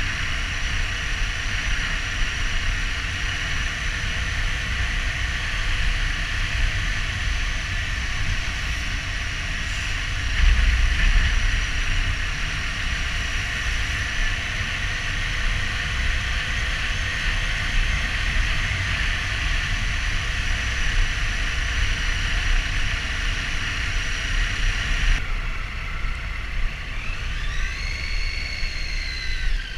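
Triumph Street Triple R's three-cylinder engine running at a steady speed for most of the stretch. About 25 seconds in the sound changes abruptly, and the revs climb and fall again.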